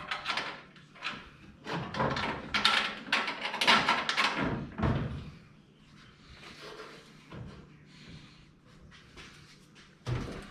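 Clatter and knocking of hard objects being handled for about five seconds, then a few lighter knocks and one sharp knock near the end.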